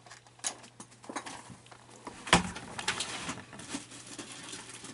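Plastic parts of an animatronic figure being handled and pried at: scattered clicks, scrapes and rustling, with one sharp knock a little over two seconds in.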